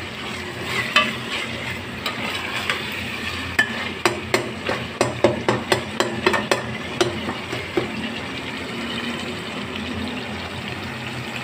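Keema (minced meat) with tomatoes and spices frying in oil in an enamel pot, a steady sizzle at the bhunai stage, when the oil has begun to separate and rise. A steel spoon stirs it, tapping and scraping against the pot in a quick run of clicks from about four to eight seconds in.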